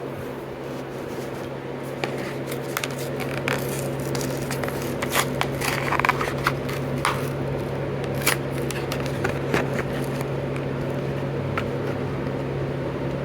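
Hot Wheels premium die-cast car packaging being opened: irregular crackling, clicking and scraping of plastic blister and card, busiest in the middle, over a steady low hum.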